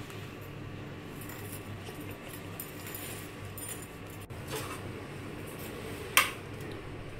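Stainless steel plate and fork clinking sharply once, about six seconds in, as the plate of boiled potatoes is moved. Faint handling sounds of peeling the potatoes come before it, over a steady low hum.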